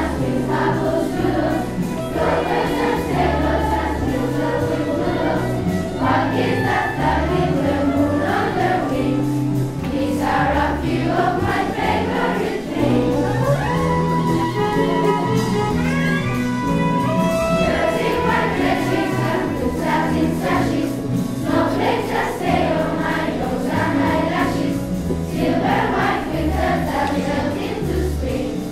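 Large children's choir singing a jazz song over an accompaniment with a moving bass line.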